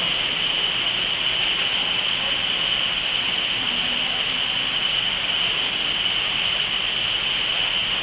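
Steady, even rushing hiss with a constant high-pitched band running through it: the ambient din of an indoor rainforest exhibit. Faint voices murmur briefly about halfway through.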